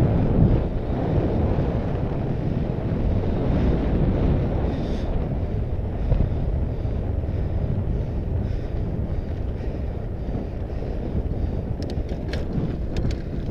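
Wind buffeting the microphone of a bike-mounted action camera, over a steady low rumble of fat-bike tyres rolling on a dirt and gravel track. A few faint clicks near the end.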